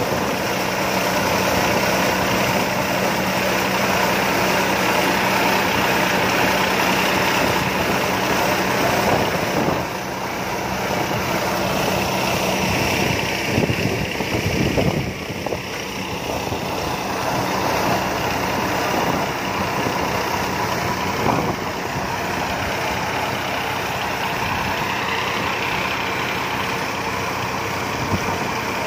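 Rice combine harvester's diesel engine running steadily, with the whirring and rattling of its threshing machinery.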